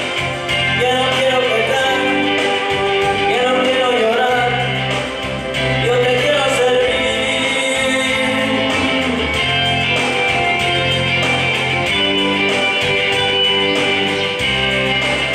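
A man singing a slow song into a microphone over guitar accompaniment.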